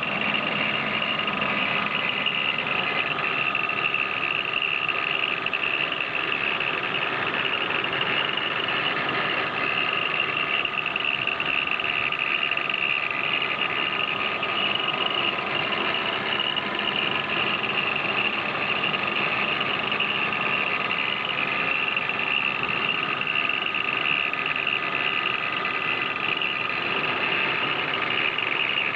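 1997 BMW E36 320i's straight-six engine idling with a steady rattle from the engine bay. The rattle comes from the original spring-type belt tensioner resonating at idle.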